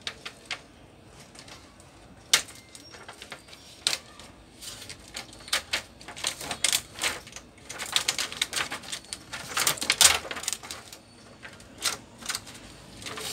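Thin plastic reflector sheet of an LED TV backlight crackling and rustling as it is handled and lifted off the panel. A few separate sharp clicks come first, then a dense run of crackling in the second half, loudest near the end of it.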